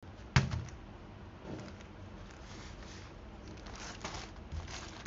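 Small packaging being handled: a sharp knock about a third of a second in, then soft rustling and small clicks.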